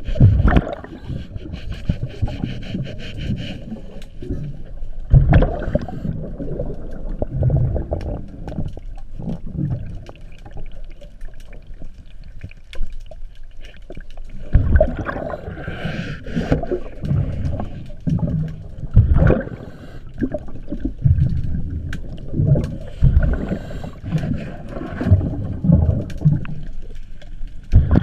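Underwater sound of a scuba diver working at a boat's propeller shaft: low bursts of exhaled regulator bubbles every couple of seconds, with scraping and small clicks of hand work in between.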